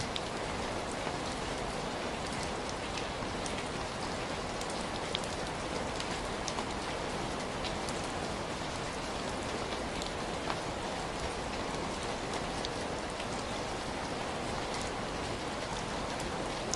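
Heavy rain falling steadily, an even hiss with many scattered drop ticks.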